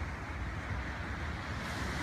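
Steady noise of breaking surf and wind at the shore: a low rumble under a hiss that grows brighter near the end.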